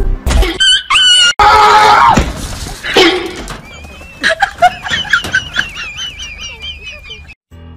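A loud scream about a second and a half in, then a long, high, wavering squeal that warbles a few times a second and cuts off just before the end.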